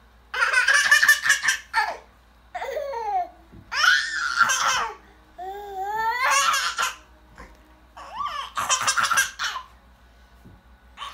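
A baby laughing in about five bouts of belly laughter with short pauses between, some rising or falling in pitch like squeals.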